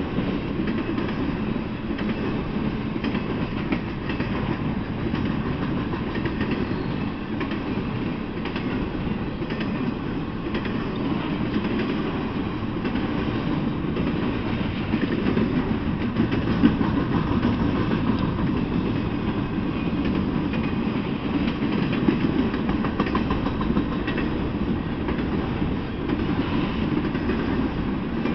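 Intermodal freight cars rolling past: a steady rumble of steel wheels on rail with scattered clicks, and a couple of louder knocks past the middle.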